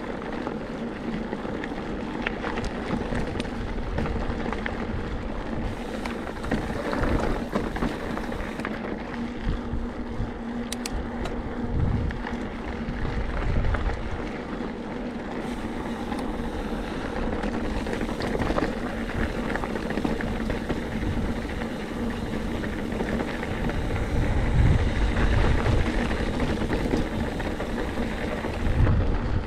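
Mountain bike ridden over a rocky trail: tyres rolling and rattling over rock with a steady run of small clicks and knocks, and wind rumbling on the microphone in gusts.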